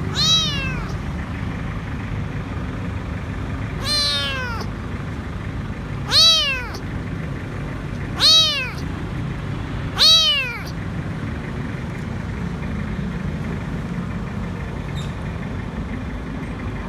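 Stray kitten meowing five times, each call rising then falling in pitch and lasting about half a second, the last three loudest, then falling quiet; the calls of a hungry kitten crying for food. A steady low hum runs underneath.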